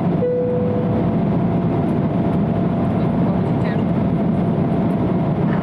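Steady cabin roar of an Embraer 170 airliner in flight, its CF34 turbofan engines and airflow making an even noise with a low hum. A short single electronic tone, a cabin chime, sounds about a quarter of a second in.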